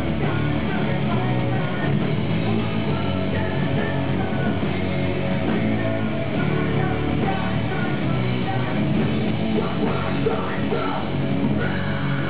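A rock band playing live, with singing over loud, continuous guitars and drums.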